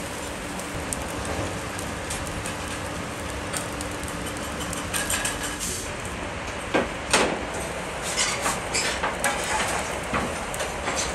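Steady sizzling hiss of fish grilling in wire baskets over charcoal embers, with a couple of sharp knocks about seven seconds in.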